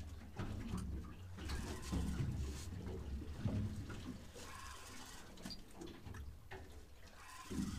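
Sea water slapping and sloshing against a boat's hull in washes every two to three seconds, over a steady low rumble.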